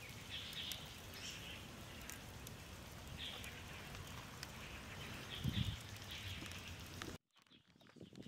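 Charcoal and dry leaves smouldering in a brick fire pit, with scattered faint crackles over a steady outdoor hiss and a few short chirps. One dull thump comes about five and a half seconds in, and the sound cuts off abruptly about seven seconds in.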